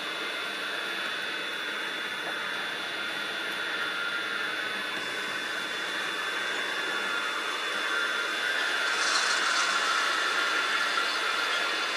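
Sound decoder in a Piko N-scale DB V200 model diesel locomotive playing a diesel engine running, through the model's tiny speaker, so the sound lacks any deep bass. The engine sound grows louder and brighter about nine seconds in.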